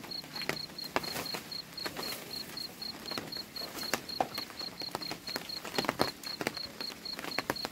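A cricket chirping steadily at about four pulses a second, with scattered clicks, knocks and rustles of leafy fodder being handled in a wooden goat trough as the goats feed; the sharpest knock comes about six seconds in.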